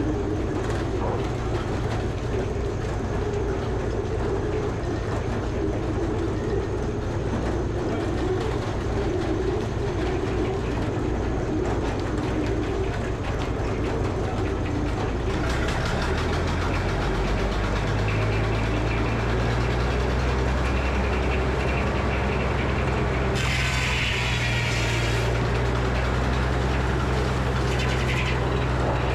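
Power unit driving a Frick sawmill running steadily. About halfway through its note rises and steadies as a higher hiss joins it, and a louder hiss comes for about two seconds near the end.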